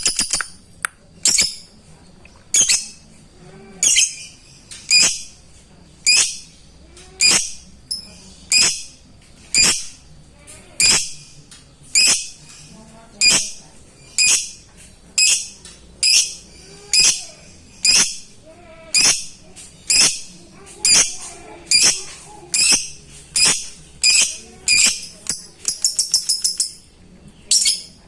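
Lovebird giving sharp, high single chirps about once a second, breaking into a quick rapid chatter near the end. This is the repeated 'ngetik' call of a lovebird calling out to a rival, used by keepers as a lure to get a quiet bird singing.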